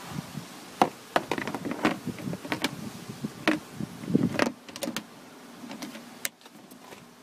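Handling noise close to the microphone: a run of irregular clicks and knocks as things are moved about. It eases off after about five seconds, and there is one more sharp click near the end.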